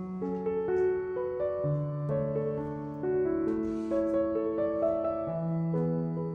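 Gentle background piano music: unhurried melody notes over held bass notes, with a brief soft hiss about three and a half seconds in.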